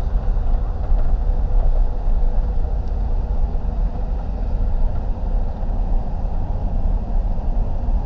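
Car driving slowly: a steady low rumble of engine and road noise.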